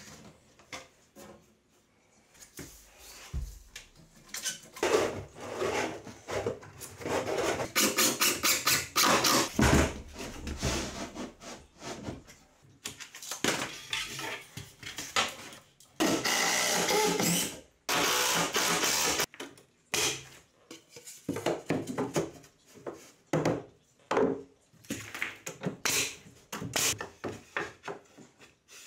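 Kitchen cabinet installation work: a string of wooden knocks, scrapes and clatter as cabinet boxes are handled and fastened. A stretch of steady tool noise runs for about three seconds past the middle.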